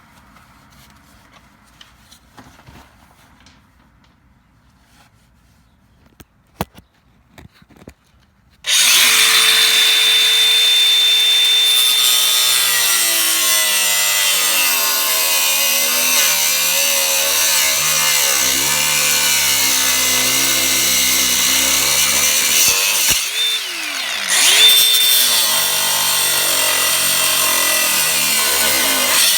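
A few quiet clicks, then about nine seconds in an angle grinder spins up with a high whine and cuts through the steel lip of a car's bump stop mount. The pitch drops and wavers while the cut is under load. It briefly eases off and spins up again near the end, then keeps cutting.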